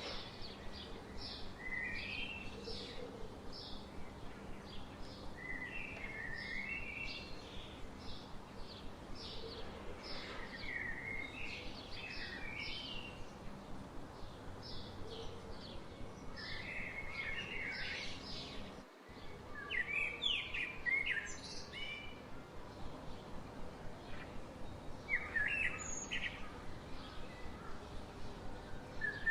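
Birds chirping and singing: many short, quick chirps and trills repeat throughout over a steady background hiss. There is a brief break about two-thirds of the way through, and the calls are louder after it.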